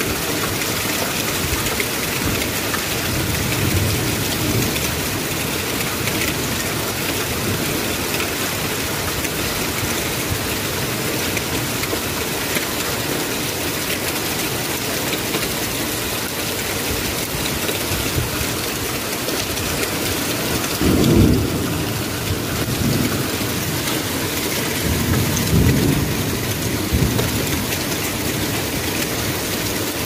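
Hail and rain falling steadily on a street and nearby surfaces, a constant hiss. Two low rumbles stand out, about two-thirds of the way in and again a few seconds later.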